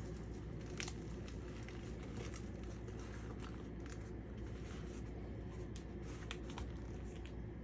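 Hands rolling up filled tortilla burritos: scattered soft clicks and faint crinkling over a steady low room hum.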